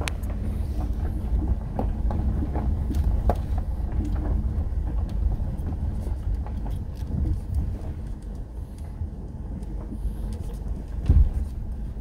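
Inside a 2011 Subaru Outback driving down a rough gravel road: a steady low road rumble with tyres crunching over stones and scattered knocks and rattles. There is a heavier thump near the end.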